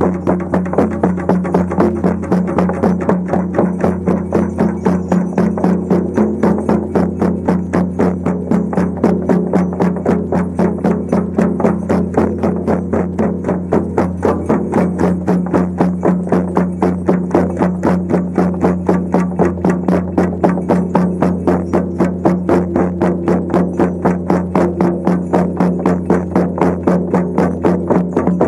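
Shamanic frame drums beaten in a fast, even rhythm, over a steady low drone.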